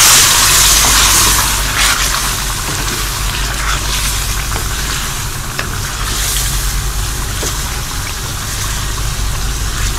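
Chicken with freshly added yogurt sizzling and bubbling in a hot metal pan over a high flame while a wooden spatula stirs it. The sizzle is loudest in the first second or so, then settles to a steadier, softer bubbling.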